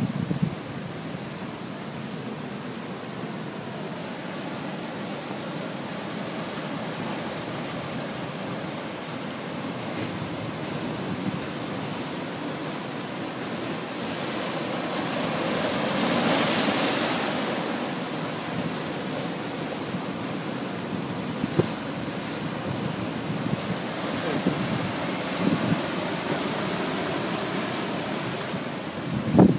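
Rough sea surf breaking over rocks and around a jetty: a steady rushing wash that swells into one louder breaking wave about halfway through, with wind on the microphone.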